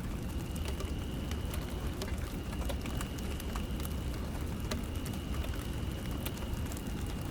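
Light rain falling steadily, with scattered sharp drop ticks, under a faint steady high-pitched tone from a car alarm siren sounding at low volume.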